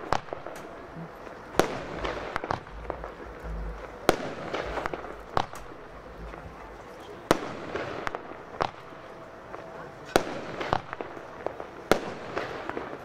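Aerial fireworks shells firing and bursting one after another: sharp bangs every second or so at uneven intervals, each followed by crackling.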